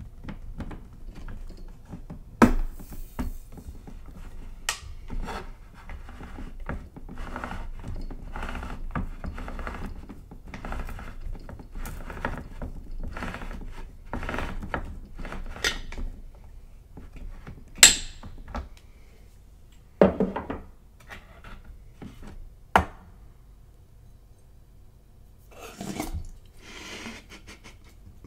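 Handheld manual can opener being cranked around the rim of a metal food can: a run of short rasping strokes for about sixteen seconds, broken by a few sharp metallic clicks. Later come a few louder clicks and knocks with quieter handling between them.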